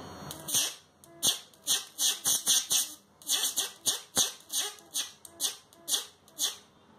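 High-voltage output of an electric fishing shocker arcing between its leads, a rapid run of sharp crackling sparks, about two a second with brief gaps. The strong arcs show the machine putting out very powerful shocks.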